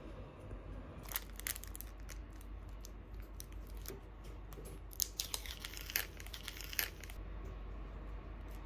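Foil lid being peeled off a plastic yogurt pot: crinkling and tearing with sharp crackles, a short burst about a second in and a denser run from about five to seven seconds in.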